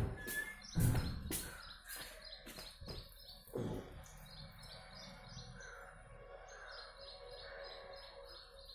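Handling noises in the first few seconds: crinkling plastic and a few knocks, the loudest about a second in. Then birds chirping over and over, two or three short chirps a second.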